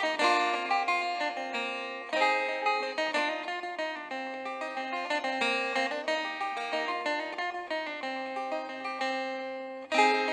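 Background music led by a plucked string instrument playing a quick run of notes, with fresh phrases starting about two seconds in and again near the end.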